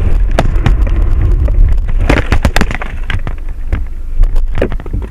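Car crash heard from inside the car: a heavy, loud rumble with a rapid run of bangs, knocks and clattering as the dashcam is knocked loose and tumbles. It dies down near the end.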